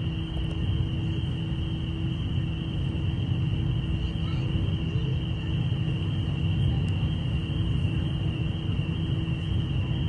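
Steady low rumble of a ferry's engines and machinery heard from the open deck, with a constant hum and a steady high whine over it.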